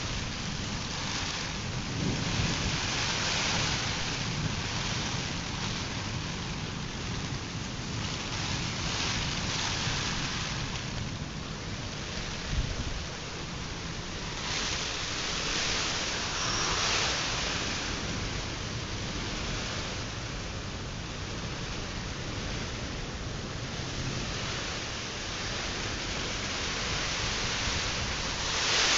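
Heavy rain of a nor'wester thunderstorm, a steady rushing that swells and eases several times as the storm gusts.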